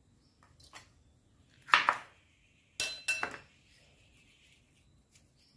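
Two loud clattering knocks about a second apart, the second ringing briefly like metal, as a steel kitchen knife is put down on a plastic cutting board; soft clicks of fingers working the snake gourd pieces around them.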